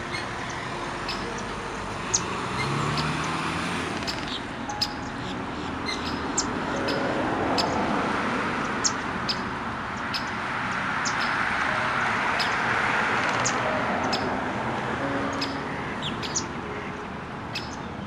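Small birds chirping in short, high notes scattered throughout, over a steady rushing background noise that swells and fades.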